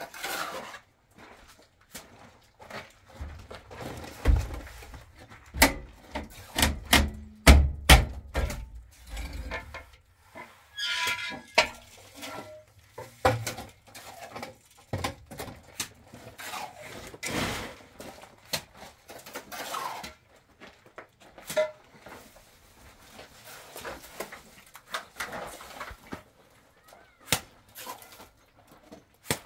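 Irregular knocks, thunks and scraping of a trowel and hand tools working cement plaster, with a run of heavier thuds about four to eight seconds in.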